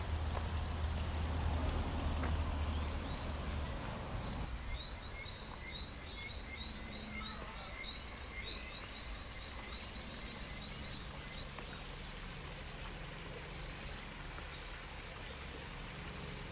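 Outdoor park ambience: a low steady hum for the first four seconds, then about seven seconds of rapid, repeated high-pitched chirps from a small animal over a steady background hiss.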